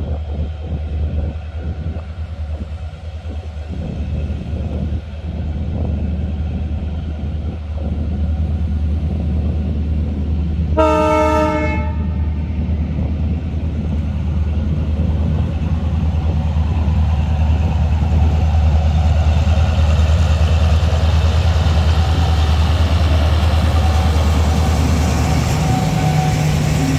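Diesel locomotive hauling a container freight train, coming closer and passing, its engine and wheels growing steadily louder. About eleven seconds in, the locomotive's horn gives one blast of about a second.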